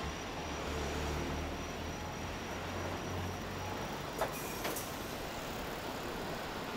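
City bus engine running as the bus pulls past, a low rumble over steady street noise that fades after about three and a half seconds. Two sharp clicks come a little past the middle.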